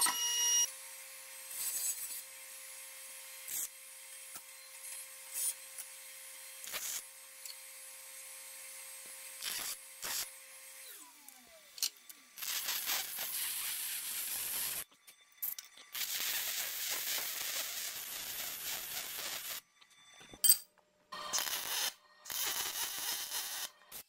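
A small electric motor hums steadily under a few metal clicks, then winds down in pitch about eleven seconds in. After that, a MIG welder runs in several bursts of crackling hiss, each starting and stopping sharply, as a steel step frame is welded.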